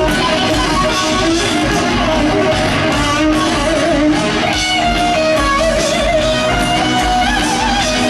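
Heavy metal band playing loud and live: distorted lead electric guitar with wavering, bent held notes over bass and drums, the lead climbing higher about halfway through.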